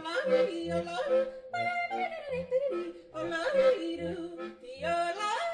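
Background music: a melody that leaps up and down in pitch over a short, repeating bass line.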